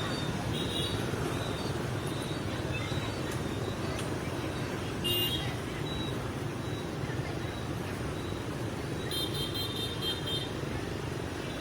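Steady road traffic noise with short high horn toots, once about a second in, again around five seconds in, and a longer one near the end.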